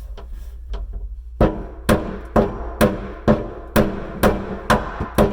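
Steady hammering, about two blows a second, starting about a second and a half in, each blow ringing briefly: knocking the mitered countertop joint back together under the cabinet.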